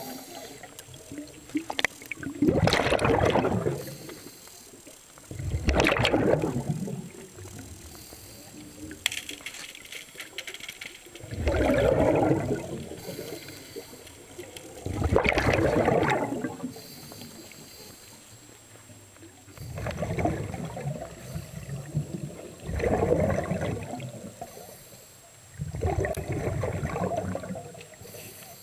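Scuba diver breathing out through a regulator, heard underwater: about seven rushing bursts of exhaled bubbles, each a second or two long, a few seconds apart, with quieter pauses between for the in-breaths.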